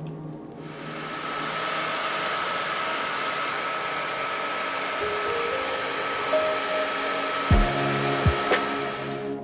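Hair dryer switched on about half a second in, blowing steadily with a high motor whine, and switched off just before the end. It is drying the embroidered fabric in its hoop.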